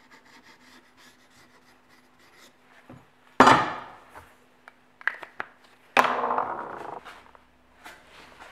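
A steel machete blank scratching lightly against a wooden workbench, then knocking down onto it twice with loud clattering hits that ring briefly, one about three and a half seconds in and one about six seconds in.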